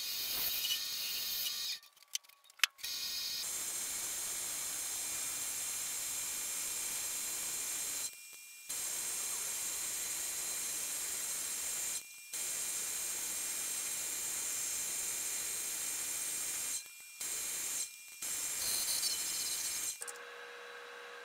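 Wood lathe running with a high-pitched motor whine while a hand sands the spinning wooden piece, making a steady hiss. The sound drops out briefly a few times, and near the end it gives way to a quieter, lower hum.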